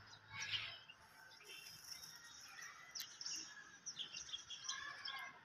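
Birds chirping in short, scattered calls, with a sharp click about three seconds in.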